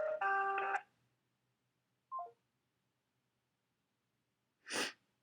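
Telephone tones from a phone's speaker, several steady pitches at once, cutting off under a second in. Then a short falling blip about two seconds in and a brief rush of noise near the end.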